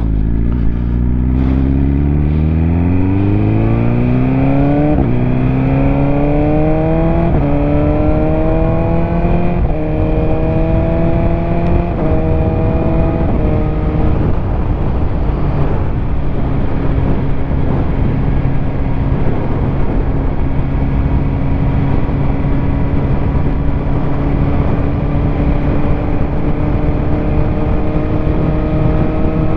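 BMW S1000RR's inline-four engine accelerating hard, pitch climbing and dropping back with each of several upshifts, then holding steady at a cruise for the second half, with wind rushing past the microphone.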